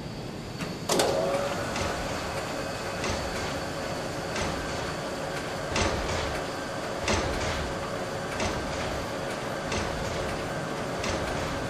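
Machinery sound effect of an overhead rail trolley moving cargo containers: a steady mechanical hum, with a whine that glides up and settles about a second in, and a sharp clank about every second and a half.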